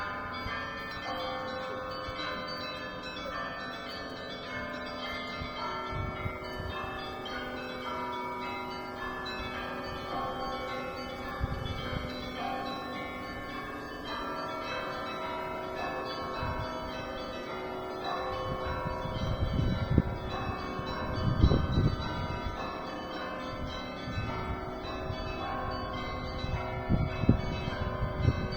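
Russian Orthodox church bells rung in a zvon: many bells of different pitches struck in quick, overlapping rhythmic patterns, ringing on without a break. A few deep thumps stand out in the second half.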